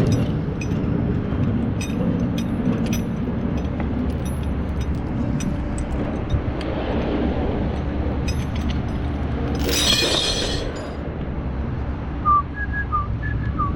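Tow truck's engine running steadily, with a short loud hiss about ten seconds in and a few short high chirps near the end.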